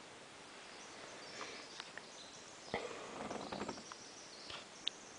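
Faint outdoor background with a soft click just under three seconds in and a short high chirp near the end.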